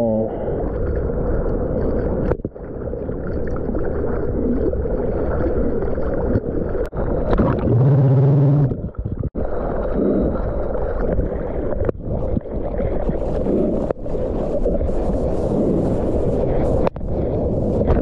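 Seawater splashing and rushing against a camera mounted on a surfboard as the surfer paddles with his arms, with a brief low hum about eight seconds in.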